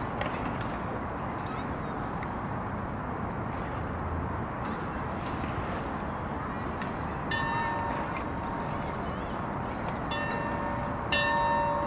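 Steady outdoor background noise by a river, with faint high bird chirps. About seven seconds in, and again for a longer spell near the end, a steady two-tone horn-like note sounds from a distance.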